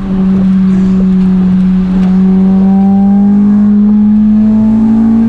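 Car engine and exhaust droning steadily inside the cabin while cruising, the pitch creeping slowly up as the car gently gains speed.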